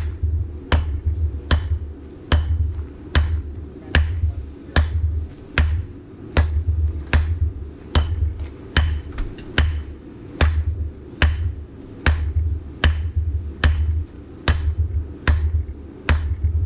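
Steady hammer blows forging hot 4140 steel for an anvil hardy tool: a sharp strike about every 0.8 seconds, each with a low thud.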